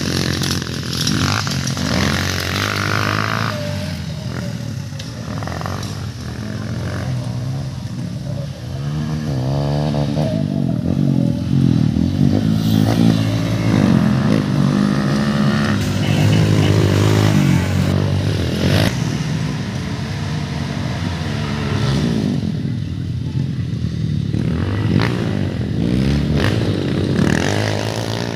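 Several dirt bike engines revving on a motocross track. Their overlapping pitches rise and fall as the riders open and close the throttle.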